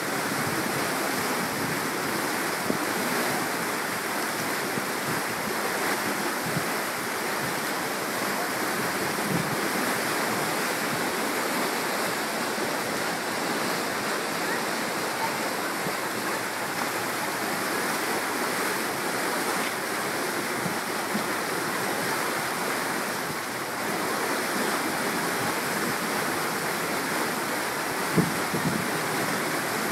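Steady rush of flowing water, with a brief knock near the end.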